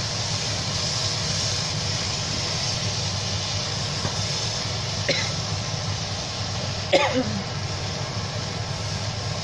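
Dry beef and potato curry sizzling in a non-stick pan as a wooden spatula stirs it, over a steady low hum. Two brief sharp sounds break in, about five seconds in and, louder, about seven seconds in.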